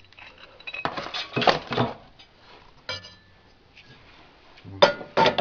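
Metal lathe parts clinking and clanking as they are handled and fitted to mount a sanding drum on a homemade lathe, with a cluster of rattling knocks early and a few louder clanks near the end.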